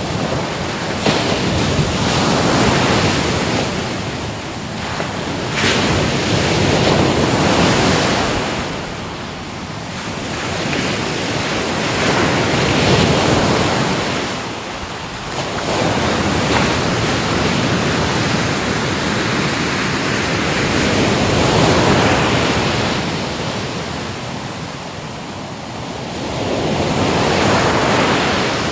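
Ocean waves breaking on a shore, the surf swelling and fading about every five to six seconds.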